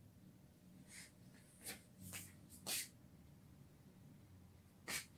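Short breaths through the nose close to the microphone: four quick ones in the first three seconds and one more near the end, over quiet room tone.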